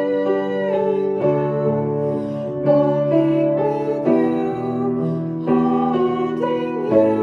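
Music: a piano playing slow, sustained chords, with a new chord struck about every second and a half.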